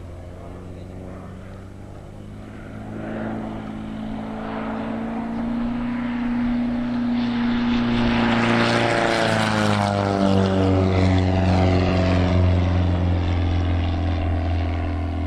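Fournier RF5 motor glider's flat-four propeller engine growing steadily louder as the aircraft comes in low over the field. Its pitch drops as it passes about nine seconds in, and the engine keeps running loudly afterwards.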